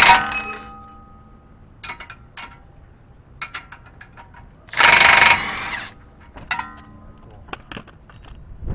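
A cordless impact wrench hammering in short bursts: one trails off at the very start and another runs for about half a second around five seconds in. Between them come scattered metallic clinks of sockets and tools, some ringing briefly.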